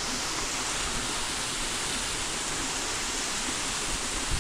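Small waterfall splashing with a steady, even rush of falling water.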